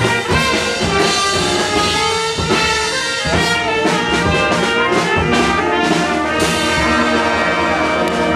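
Live brass band playing a lively tune, horns over drum hits.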